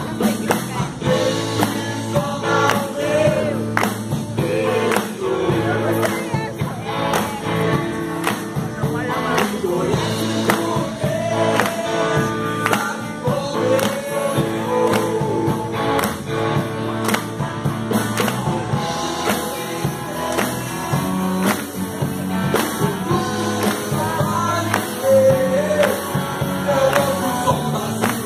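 Live band performing a song: a singer over a steady drumbeat, electric guitars and bass.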